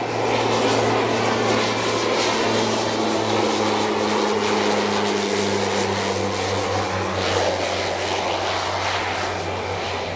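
Fuji T-7 trainer's single turboprop and propeller, a steady drone as the plane flies low past with gear down, the tone dropping slightly in pitch as it goes by.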